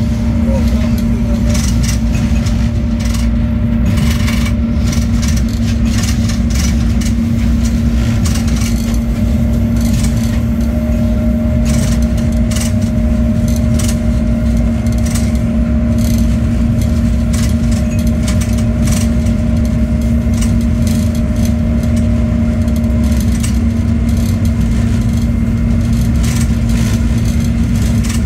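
Diesel locomotive running steadily at speed, heard from inside the cab: a constant engine hum over a low rumble of wheels on rail, with scattered clicks and rattles. A faint higher tone joins in about ten seconds in and fades out after twenty seconds.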